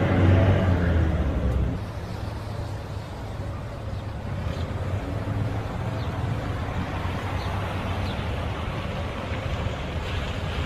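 Motor vehicle engine running steadily, a low even hum with road noise, a little louder for the first couple of seconds.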